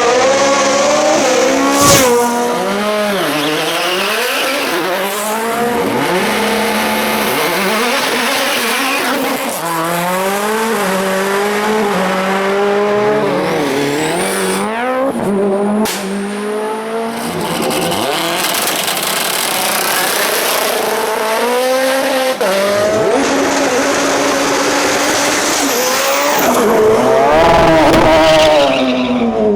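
Hill-climb race cars launching from the start one after another, each engine revving hard and climbing in pitch through quick upshifts, the pitch dropping at each gear change.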